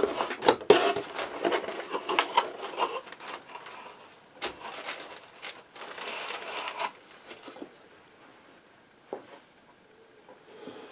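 Cardboard shipping box being opened and its plastic wrapping handled: a run of scrapes, taps and crinkling for several seconds, then it goes quiet apart from one short knock near the end.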